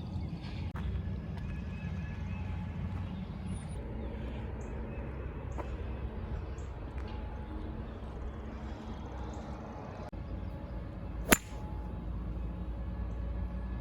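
Outdoor ambience with a steady low rumble and faint bird chirps, broken about eleven seconds in by a single sharp crack: a golf club striking a ball.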